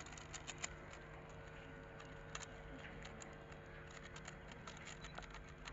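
Faint, irregular plastic clicking of Rubik's cubes being twisted, over a steady low hum.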